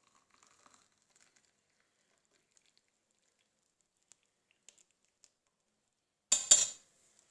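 Near quiet with a few faint ticks, then about six seconds in a loud, quick double clink of a metal kitchen strainer knocking against a glass.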